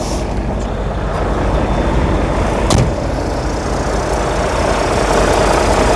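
Volvo semi truck's diesel engine idling steadily with the AC running, with a single sharp click about three seconds in.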